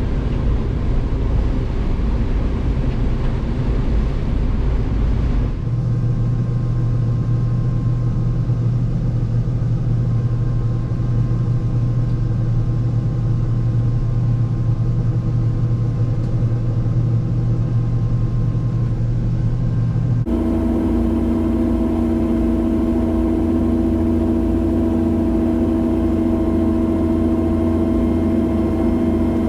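Combine harvester running steadily while harvesting corn: a loud, continuous drone of engine and machinery. The tone changes abruptly twice, about five seconds in and again about twenty seconds in.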